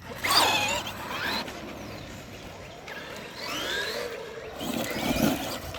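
Electric RC car's motor whining, its pitch sweeping up and down as the car speeds up and slows, twice in a few seconds.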